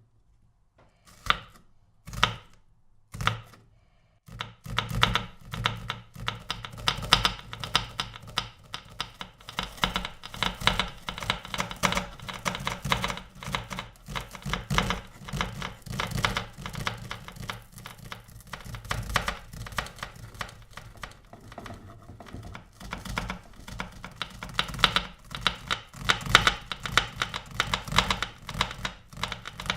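Kitchen knife chopping food on a cutting board: three separate strikes, then from about four seconds in a fast, continuous run of chopping.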